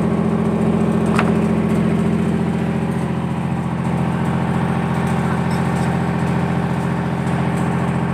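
Large engine idling steadily, with one faint click about a second in.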